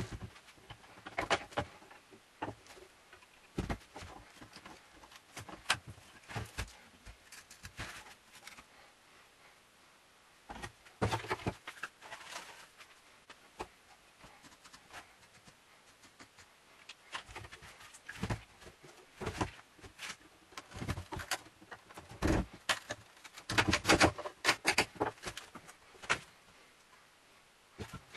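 An old wooden coffee-table top being handled and shifted on a workbench: irregular wooden knocks, taps and scrapes, coming in a few busier spells, the loudest a few seconds before the end.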